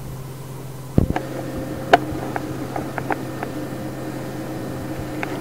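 Steady low hum and hiss of an old sermon tape recording, with a thump about a second in followed by a string of sharp clicks.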